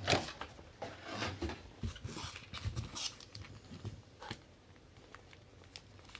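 Faint, scattered rustles and light clicks from football trading card packs and cards being handled.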